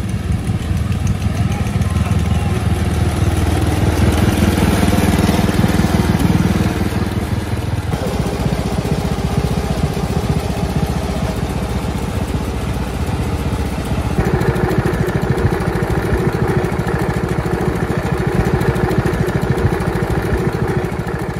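Wheel Horse garden tractor's single-cylinder Kohler engine running steadily through a tall straight exhaust stack. It grows louder over the first several seconds as the tractor is driven closer, and the engine note changes abruptly about 8 and 14 seconds in.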